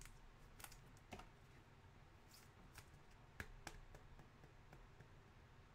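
Near silence broken by faint, scattered light clicks and taps, the loudest pair about three and a half seconds in.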